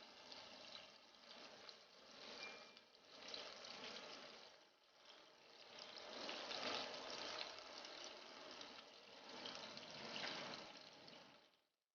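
Meatballs faintly sizzling and crackling in olive oil in a covered frying pan, the hiss swelling and fading every second or two.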